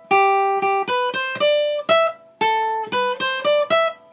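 Acoustic guitar playing a single-note melody riff high up the neck, notes plucked one at a time: a held note followed by a quick run of shorter notes, the phrase played twice.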